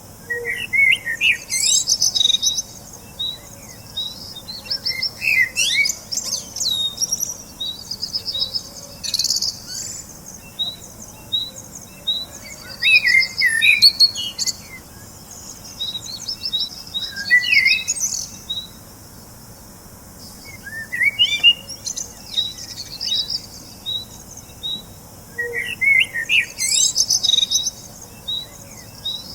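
Songbirds chirping and singing in short bursts of trills and chirps every few seconds, with runs of short, evenly spaced high peeping notes, several a second, between the bursts.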